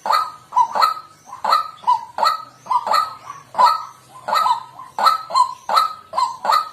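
White-breasted waterhen calling, a continuous run of harsh, honking 'kwak' notes at about three a second.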